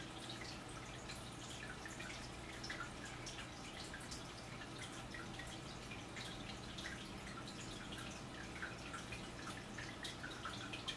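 Quiet indoor room tone: a steady low hum with faint, irregular clicks and ticks scattered throughout.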